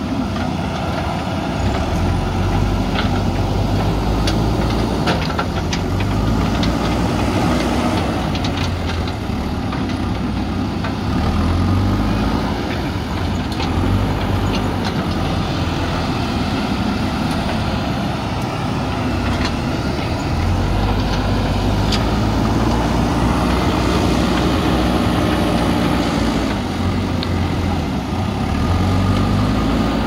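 JCB 3DX backhoe loaders' diesel engines running under working load, the revs rising and falling repeatedly as they lift and move rubble. Scattered sharp knocks of broken stone against the steel buckets come through over the engine sound.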